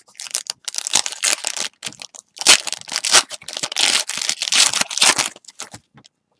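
Trading-card pack wrapper of a 2019-20 Panini Prizm basketball retail pack being torn open and crinkled by hand. The crackling runs in quick bunches, is loudest in the middle and stops shortly before the end.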